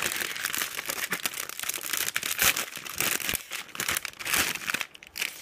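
Thin plastic bags around model-kit parts runners crinkling and rustling as they are handled, a dense crackle that dies down shortly before the end.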